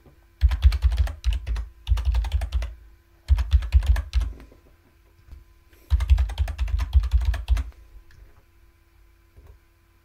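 Computer keyboard typing in four quick bursts of rapid key clicks as a password is typed and then typed again to confirm, followed by a few scattered single clicks near the end.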